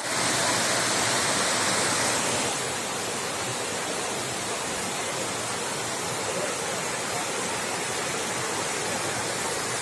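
Rushing water of a shallow river cascading over rock slabs in white-water rapids, a steady even rush. It is a little louder for the first couple of seconds, then settles.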